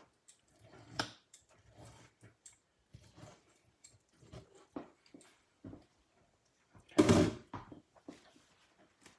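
Kitchen knife scoring a raw strip steak on a ceramic plate: scattered faint taps and scrapes of the blade against the plate, with one louder clatter about seven seconds in.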